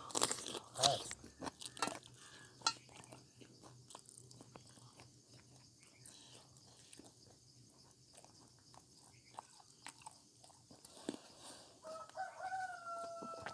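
A person eating: quiet chewing and crunching with small clicks of food and dish. About twelve seconds in, a rooster crows faintly, one drawn-out call.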